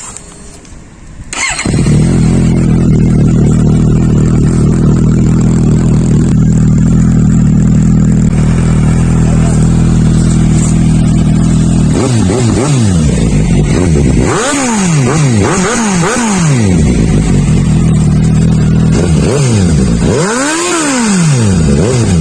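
Suzuki GSX-S750 inline-four motorcycle with a Black Widow slip-on exhaust, starting up about a second and a half in and idling steadily. Later it is revved in several quick throttle blips, then one longer rev near the end.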